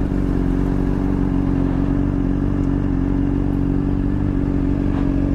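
Honda CBR600RR's inline-four engine running steadily at low revs, its pitch holding level throughout.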